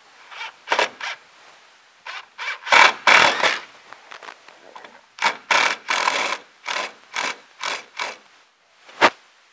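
Cordless drill/driver driving long decking screws up through a board into wooden ceiling joists, in several runs of the trigger, some long and some short, with a sharp click near the end.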